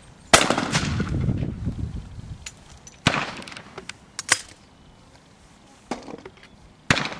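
Shotgun fired at a clay target a fraction of a second in, the report rolling away for about two seconds. A second, quieter shot comes about three seconds in, followed by a few fainter sharp cracks.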